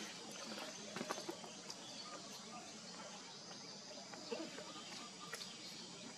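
Faint outdoor ambience: a steady high insect drone, with a few small clicks about a second in and again past the four-second mark.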